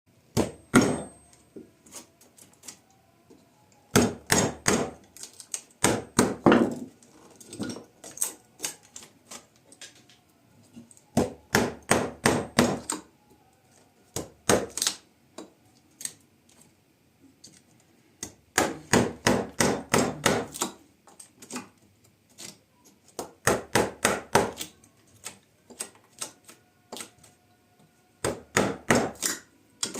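Quick runs of sharp knocks, several a second, in bursts of one to two seconds separated by short pauses, like a hand tool striking repeatedly during woodworking.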